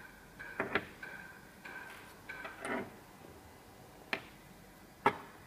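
Small steel parts of a dental handpiece bearing-removal tool being handled and set down on a table: a few sharp metallic taps and clicks, the two loudest about four and five seconds in.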